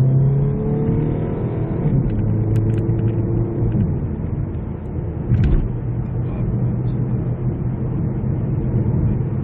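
Cabin noise of a 2019 Kia Niro pulling away and accelerating up a slight incline: a steady engine and road rumble, with a rising tone over the first two seconds. A brief knock comes about halfway through.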